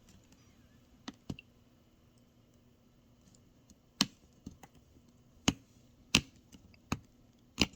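Sharp clicks and taps, about eight of them at irregular intervals, from hands handling the open laptop's internal parts.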